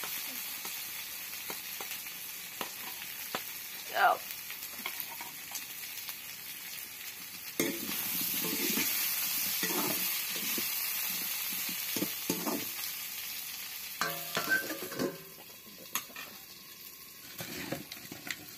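Chicken pieces and potatoes sizzling in hot oil in a wok, stirred with a spatula that scrapes and clinks against the pan. About fifteen seconds in, a cluster of clatters as a steel lid goes on the pan, after which the sizzle is quieter and muffled.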